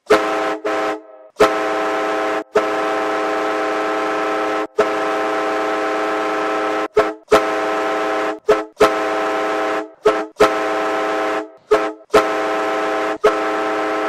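Ice hockey goal horn sounding a chord of several steady tones in about a dozen blasts of uneven length, the longest about two seconds, broken by short gaps.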